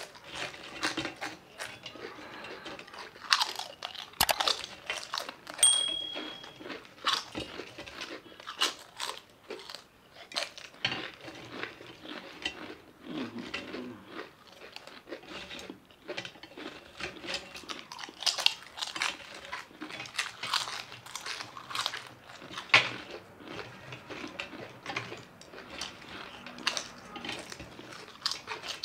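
Two people crunching and chewing mouthfuls of crisp fried chips in quick, irregular bites.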